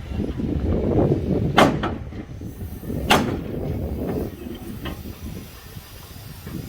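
Sharp knocks from repair work on a fishing boat: two close together about one and a half seconds in, one about three seconds in and a fainter one near five seconds. Low rumbling noise runs underneath.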